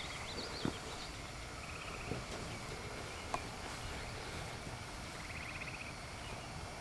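Quiet outdoor evening ambience with faint bird calls: chirps near the start, then short trills about two seconds in and again past the five-second mark. A few faint clicks are scattered through it.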